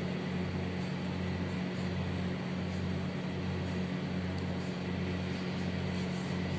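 Steady low machine hum, like a running appliance motor, with a slow, even throb a little faster than once a second.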